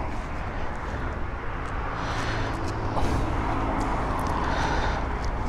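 Steady motor-vehicle engine and traffic noise, with a few faint light clicks.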